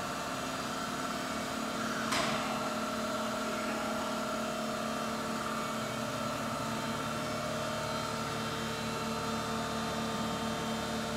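Steady electrical hum and whine of a powered-up Semco VMC 1000 CNC bed mill, several fixed tones together. One sharp click comes about two seconds in.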